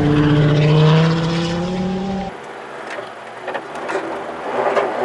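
Audi 80 quattro rally car's engine held at high revs as it slides past on gravel, the pitch climbing slowly. About two seconds in it cuts off abruptly to quieter sound inside the car, with a few clicks.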